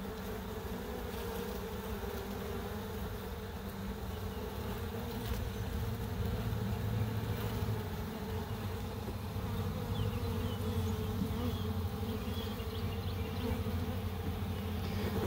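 A colony of honey bees buzzing in a steady hum, close up, around frames of fresh comb in an opened hive box.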